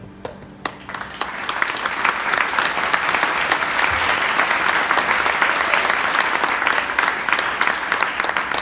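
Audience applauding: a few scattered claps at first, swelling within about a second and a half into steady applause.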